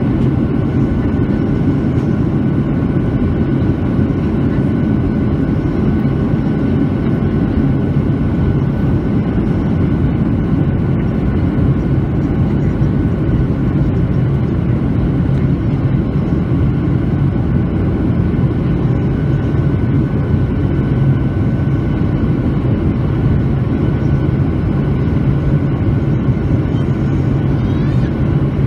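Steady cabin noise inside a Boeing 737-900 on descent: the CFM56-7B turbofan engines and rushing airflow make a constant low hum, with a few faint steady whine tones above it.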